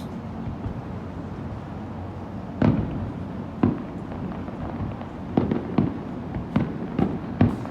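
Fireworks shells bursting at a display. Two separate bangs about a second apart come first, then a quicker string of bangs over the last two seconds, all over a steady background noise.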